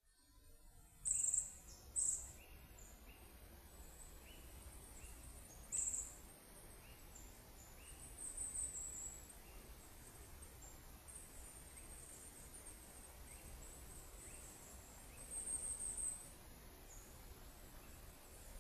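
Small birds giving very high, thin calls: a few short sharp ones near the start, then longer twittering runs around the middle and near the end. Fainter chirps repeat steadily under a low rumbling background.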